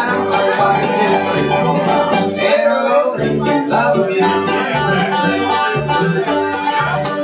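A live bluegrass band playing, with banjo picking over an upright bass keeping a steady beat of about two notes a second.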